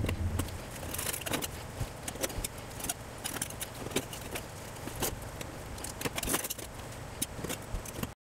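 Metal putty knife scraping old toilet wax ring residue off the drain flange: irregular scrapes and small clicks of the blade against the flange. The sound cuts off suddenly near the end.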